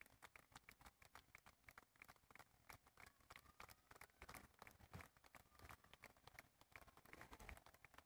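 Faint crowd applause: many scattered, irregular claps.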